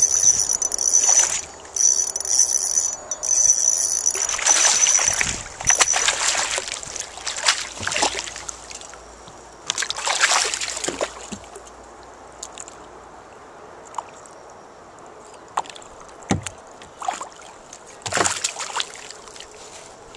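Lake water splashing and sloshing beside a small boat, in several short bursts a few seconds apart, the biggest around five and ten seconds in and again near the end. A high, pulsing insect chirring runs through the first five seconds or so.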